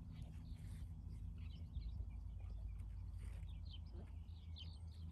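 Faint outdoor morning ambience: scattered short bird chirps over a low, steady rumble.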